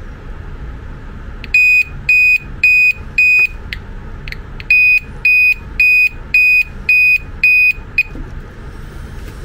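P21W LED reversing-light bulb with a built-in reversing beeper, powered from a battery and sounding a high, even electronic beep a little over twice a second. It gives four beeps, two short chirps as the contact flickers, then seven more beeps before cutting out, showing that the bulb's beeper works.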